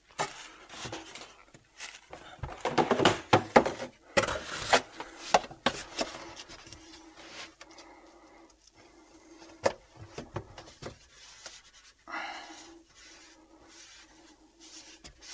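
Knocks and clatter of a PVC drain pipe and plastic fittings being handled and worked loose under a kitchen sink, thickest in the first few seconds, with a short hiss near the end.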